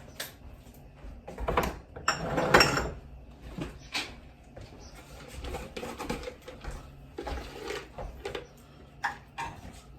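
Kitchen handling noises as spices go into a cooking pot: a spoon and containers clicking and knocking, with a louder stretch of scraping and rustling about two to three seconds in.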